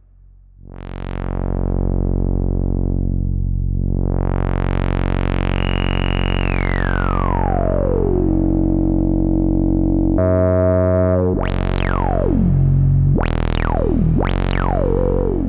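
Musonics Vanilla 5U modular synthesizer holding one low, buzzy note while its filter cutoff is swept by hand. A quick sweep up and down comes about a second in, then a slow rise that is held bright and gradually closes again. Near the end come three sharp resonant sweeps falling in pitch.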